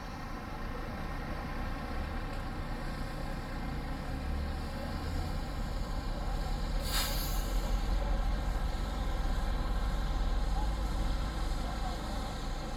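Tour bus engine running, its low rumble growing louder in the second half, with a short, sharp air-brake hiss about seven seconds in.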